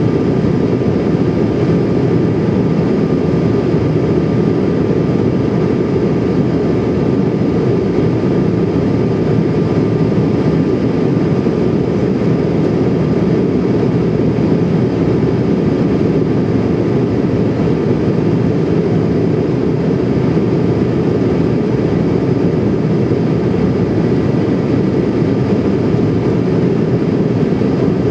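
Steady in-flight cabin noise of a Bombardier CRJ700NG airliner in descent: a loud, even rush of airflow and turbofan engine noise. Faint steady high tones run through it.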